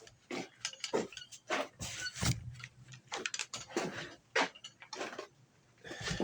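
Hand tools working on a wooden table: a quick, irregular run of clicks, knocks and scrapes, wood and metal.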